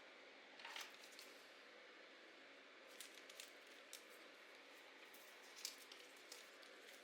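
Faint paper-crafting sounds over a steady hiss: a brief rustle of paper about a second in, then scattered light clicks and taps.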